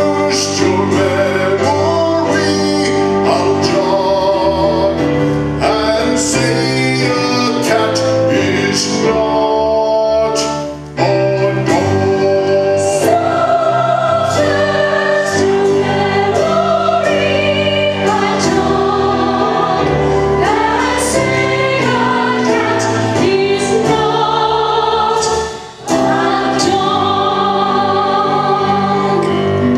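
Musical theatre song: voices singing with vibrato over instrumental accompaniment, with two brief drops in level.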